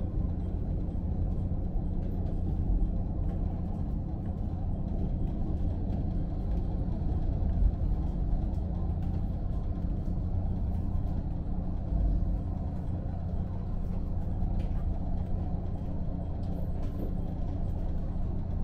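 Cabin sound of a KiHa 54 diesel railcar pulling into a station: a steady low rumble of the diesel engine and running gear, with a couple of faint low bumps.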